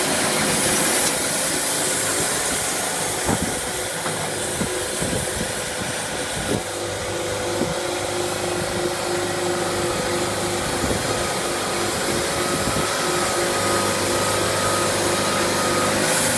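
Sawmill machinery running steadily: a constant mechanical drone with a hissing noise, a few steady hum tones, and a few short knocks along the way.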